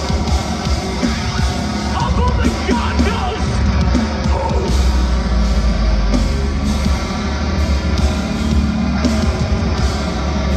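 Metalcore band playing live at full volume: distorted electric guitars, bass and drums, with vocals from the singer, heard from the crowd.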